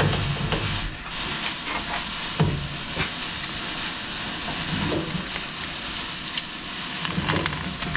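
Steady hiss with a few sharp metallic clicks and knocks as a three-jaw lathe chuck is turned by hand and the work in it is handled.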